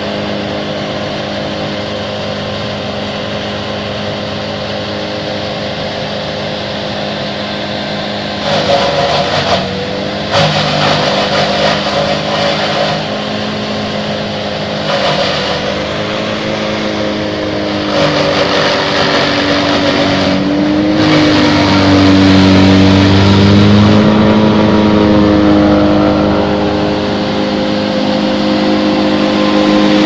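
Bandit wood chipper running at working speed while branches are fed in and chipped. Its engine note sags under the load of chipping, with noisy bursts about eight seconds in, again around fifteen seconds, and for several seconds from about eighteen seconds, loudest a little after twenty seconds.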